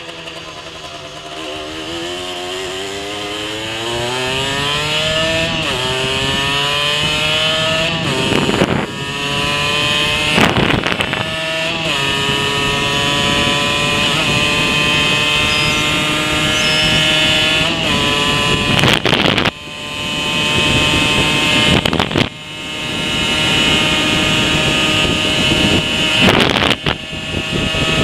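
Rieju SMX 50 cc two-stroke moped engine on its standard exhaust, heard onboard while riding. The engine note climbs through the gears and drops back at each shift, several times, and a few brief thumps cut in.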